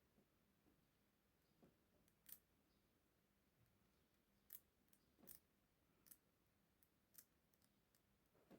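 Faint snips of scissors cutting the lace of a frontal wig, about seven or eight short cuts, irregularly spaced, most of them in the second half.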